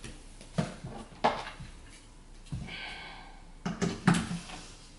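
Knocks and clicks of a robot toy's charging base and its power cable being handled and plugged in on a wooden floor, the loudest cluster near the end, with a brief electronic tone about halfway through.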